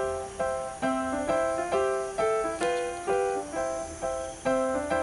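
Background music: a light, bouncy melody of short notes that start sharply and die away, about two a second.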